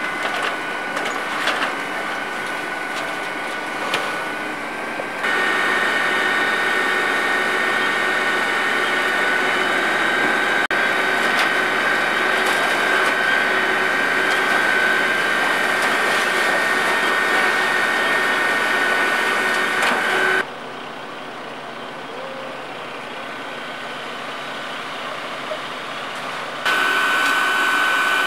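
A fire engine's motor and pump running steadily under hose load, with a constant high whine over the engine noise. A few sharp crackles come in the first few seconds, and the level jumps up and down abruptly several times.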